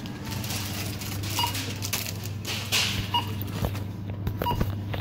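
Supermarket checkout barcode scanner beeping as items are scanned, three short beeps about a second and a half apart, over a steady low hum and the clatter of the checkout.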